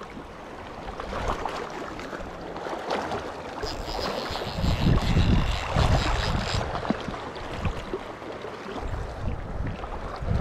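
River water flowing, with wind gusting on the microphone, heavier from about halfway through. About four seconds in, a fly reel whirs for about three seconds as line is wound in on a hooked trout.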